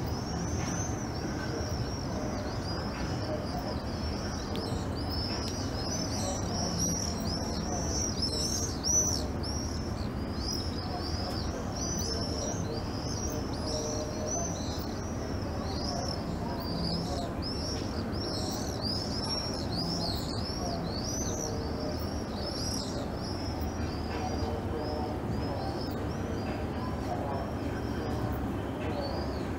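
Small birds chirping continuously, many short high chirps overlapping one another, over a steady low background rumble. A brief bump stands out about nine seconds in.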